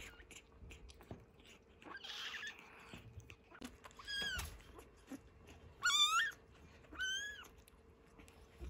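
Young kittens mewing: three short, thin, high mews in the second half, the middle one the loudest, with soft noises before them while they suckle from a nursing bottle.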